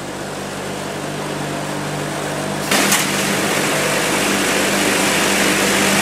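Factory metalworking machinery running with a steady hum that grows louder. About two and a half seconds in, a loud hissing machine noise starts, with a couple of short metal clanks.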